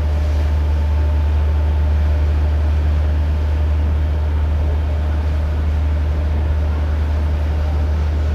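Passenger ferry heard from on board: a steady low engine drone with a constant hiss of wind and water over it.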